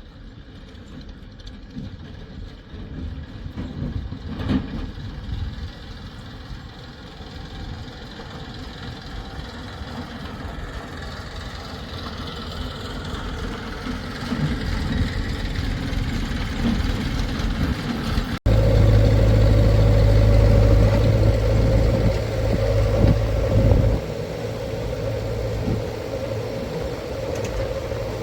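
Heavy vehicle's diesel engine running and growing steadily louder over about eighteen seconds. After an abrupt cut, a much louder engine runs steadily close by, with a strong low hum.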